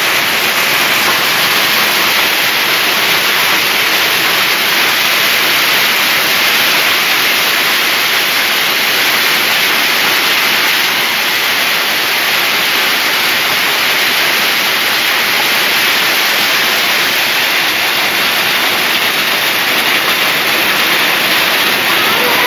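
Hailstorm: hailstones and rain pelting down onto concrete in a loud, steady, dense hiss that does not let up.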